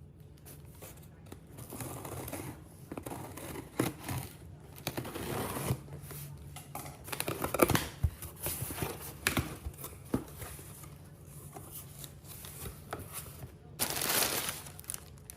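A cardboard shipping box being opened and unpacked by hand: tape and packing material tearing, rustling and crinkling, with scattered knocks and clicks. The rustling gets louder and denser near the end.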